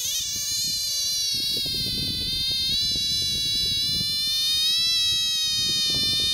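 A large frog held in a man's hands screaming: its distress call, one long unbroken high-pitched wail that rises slightly in pitch about five seconds in.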